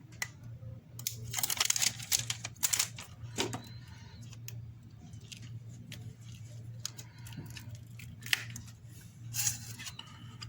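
Protective plastic film being peeled off a new iPhone 8 replacement screen: irregular crackling and tearing rasps, thickest about one to three seconds in and again near the end, over a steady low hum.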